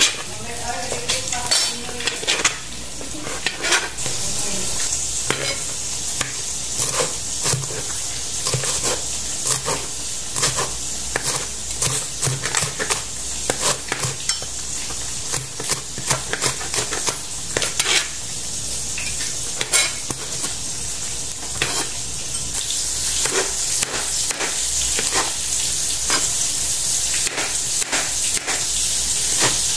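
Chef's knife chopping vegetables on a cutting board, sharp irregular strikes about once or twice a second, over a steady sizzle of frying.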